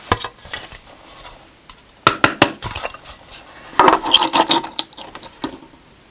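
Small hard objects clinking and clattering together in a few quick clusters, the busiest a little past the middle.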